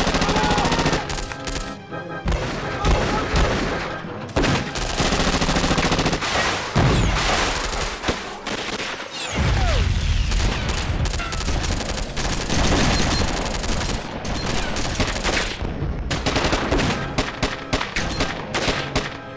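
Designed film gunfight: dense, near-continuous gunfire from several guns, with rapid automatic bursts and a few brief lulls.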